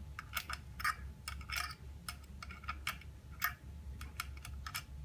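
Irregular sharp clicks and taps from hands and tools adjusting the mold and screws of a manual OCA laminating machine, over a faint low steady hum.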